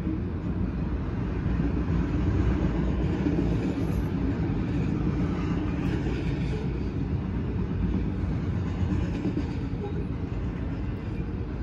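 CSX freight train of autorack cars rolling through a grade crossing: a steady low rumble of steel wheels on the rails.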